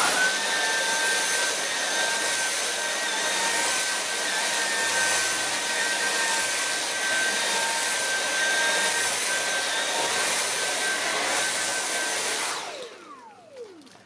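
Dyson V8 Animal cordless vacuum running with its motorized pet brush head on carpet: a steady high whine over rushing airflow, starting instantly. About twelve and a half seconds in it is switched off and winds down, its pitch falling away.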